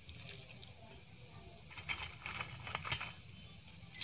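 Fingers mixing rice and dal on a steel plate: faint, soft wet patter, with a run of small clicks and squishes about two to three seconds in.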